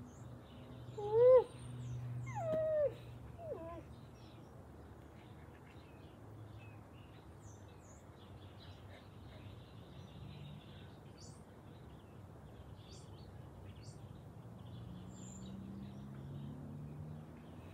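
A girl imitating a wolf with short cries: a loud one about a second in that rises then falls, a second that slides downward, and a faint third shortly after. The rest is faint background.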